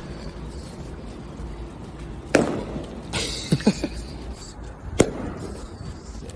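Two sharp knocks about two and a half seconds apart, with a short rattling clatter between them.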